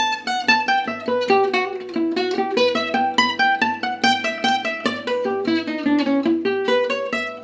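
Acoustic gypsy jazz guitar playing a fast phrase of single picked notes, each note clearly attacked in a continuous run.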